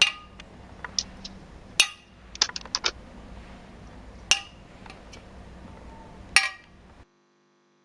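A hardened ball of boiled jaggery syrup dropped and knocked against a plate, clinking sharply about a dozen times, some in quick clusters. The hard clink shows the syrup has reached the hard-ball (stone) stage, the right consistency for puffed-rice balls. The sound cuts off suddenly near the end.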